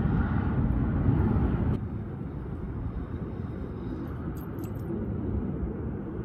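Gusty wind buffeting the microphone as a low rumbling roar, strong for the first couple of seconds and then easing off. A few faint clicks come about two thirds of the way through.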